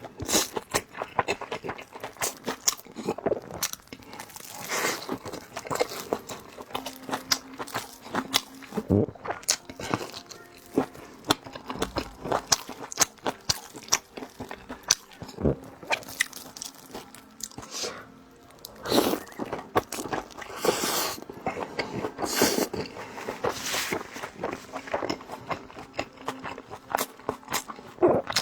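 Close-miked eating sounds: someone biting into and chewing large steamed dumplings, with irregular wet smacks and short clicks of the mouth.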